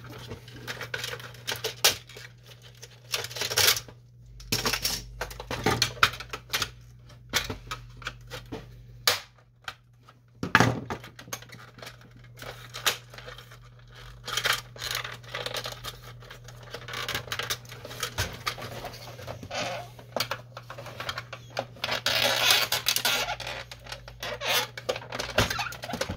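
Plastic parts of a disassembled Canon Pixma MG5520 printer being worked loose by hand: irregular clicks, snaps and rattles of hard plastic against plastic, with a denser stretch of scraping and rattling a few seconds before the end. A steady low hum runs underneath.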